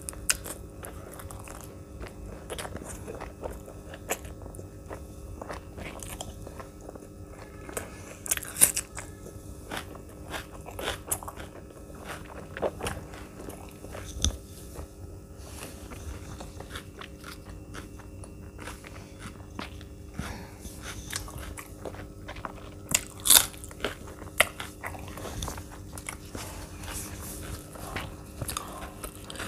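A person eating close to the microphone: bites, crunching and chewing in irregular strokes, with the loudest crunches about eight seconds in and again around twenty-three seconds.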